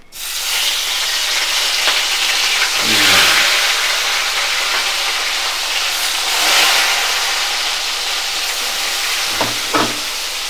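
Fish pieces coated in salt and turmeric sizzling in hot mustard oil as they are slid one by one into a steel wok. The sizzle starts suddenly and swells again as more pieces go in.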